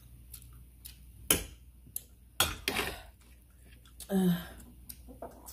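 Sounds of people eating noodles at a table: a few sharp clicks, a short breathy rush, and a brief voiced grunt about four seconds in.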